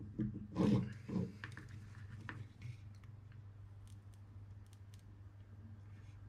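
A short low vocal sound from a person about half a second in. After it come faint scattered small clicks as a soldering iron and solder wire work the pins of an electronic control unit's circuit board, over a steady low hum.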